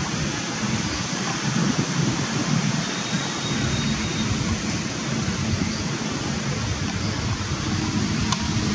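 Steady rushing background noise, with a fluttering low rumble like wind buffeting the microphone, and a single faint click near the end.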